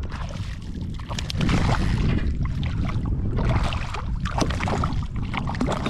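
Wind rumbling on the microphone over water splashing and sloshing around a kayak, with many short sharp splashes and clicks.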